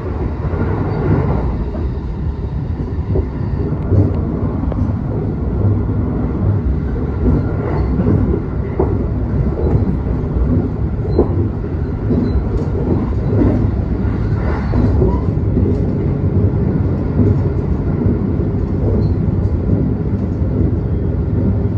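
Rapid Marine Liner electric train running at speed, heard from inside the carriage: a steady rumble of wheels on rails with scattered clicks and knocks.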